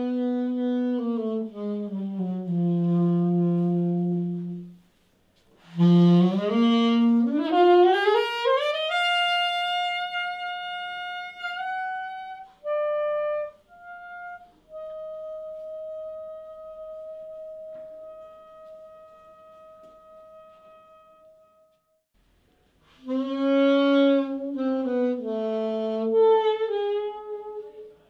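Solo saxophone improvising jazz: a phrase sinking to a low held note, a fast run climbing into the high register, then a long high note held for several seconds that fades away. After a short pause it plays another falling phrase.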